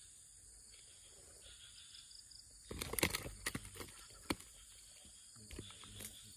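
Steady high-pitched drone of insects, with a cluster of rustles and sharp knocks starting about three seconds in.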